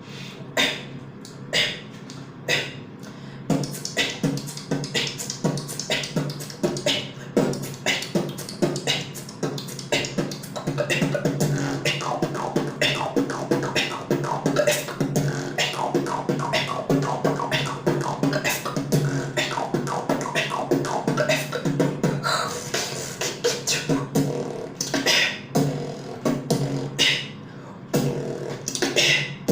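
Solo beatboxing routine: rhythmic mouth percussion built on the 'cough snare', a snare hit made with a cough-like burst from the throat. The first few seconds are sparse hits, then a steady beat with a pitched vocal line running under it.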